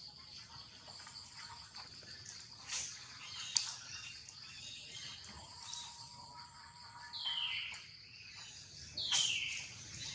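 Outdoor natural ambience: a steady high insect drone with scattered bird chirps, a sharp click about a third of the way in, and two short high calls falling in pitch in the second half.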